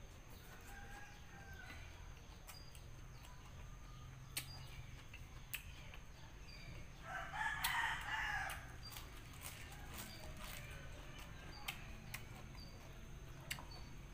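A rooster crows once, loudly, about seven seconds in, the call lasting about a second and a half. Scattered sharp crunches of raw napa cabbage leaves being bitten and chewed sound around it.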